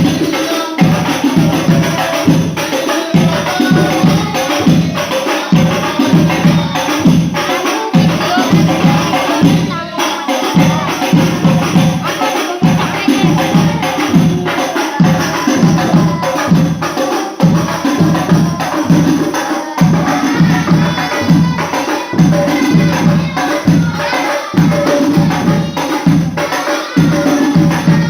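Sholawat devotional music: a group of frame drums (rebana) with jingles beating a steady, driving rhythm under wavering sung melody.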